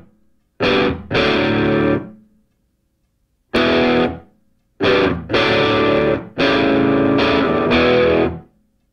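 Intro music of distorted electric guitar: loud chords struck and let ring, then cut off, with short silences between them.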